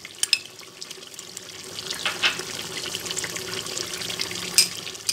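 Mutton pieces sizzling in hot oil in a metal pot, a steady frying hiss with scattered sharp crackles.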